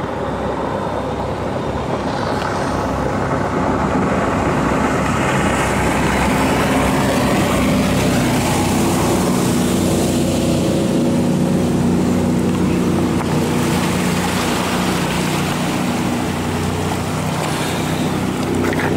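Jet boat's engine and water jet running at speed as it comes up the river and passes close by, a steady engine drone under a rushing hiss of spray that swells about halfway through.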